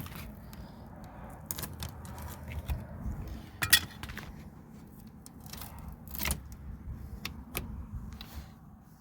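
A plastic trim tool prising a stuck panel off a car door's inner metal frame: a string of sharp clicks, knocks and small rattles, the loudest about four seconds in.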